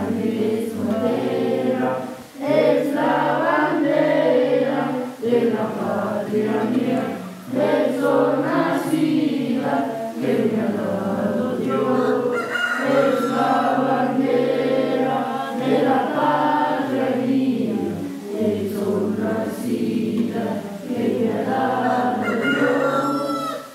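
A group of schoolchildren singing a flag-raising song together in unison, with low held notes beneath the voices. The singing stops suddenly near the end.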